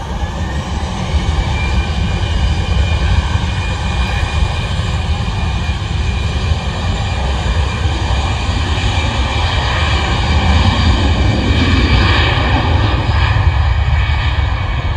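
Airbus A319's twin jet engines at takeoff thrust during the takeoff roll: a rising whine as they spool up in the first couple of seconds, then a steady jet roar with high fan whine over a deep rumble, loudest as the aircraft passes.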